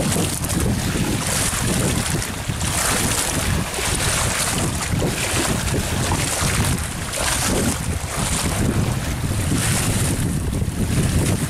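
Wind buffeting the microphone, over choppy river water slapping and splashing against an earth bank in repeated surges.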